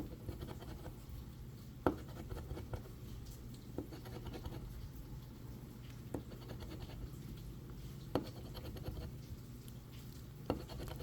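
Scratch-off lottery ticket being scratched: soft, quiet scraping with a few sharp taps scattered through.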